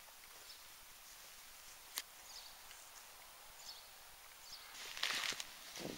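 Quiet outdoor ambience with a few short, faint high chirps, a single sharp click about two seconds in, and a brief rustle of footsteps on dry grass near the end.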